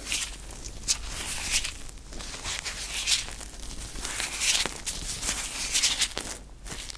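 White rubber gloves rubbed and flexed by the fingers close to the microphone: irregular swishing rubs, about one or two a second, with a few sharp clicks.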